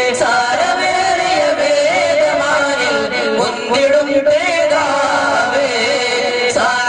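Male singing of a devotional song in a continuous, ornamented melody that winds up and down in pitch, in a Middle Eastern style.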